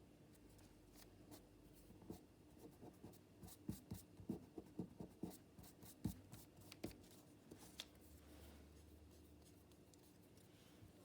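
Faint scratching and light tapping of paper being handled and pressed down by hand, a quick run of small taps in the middle, then settling to quiet room tone.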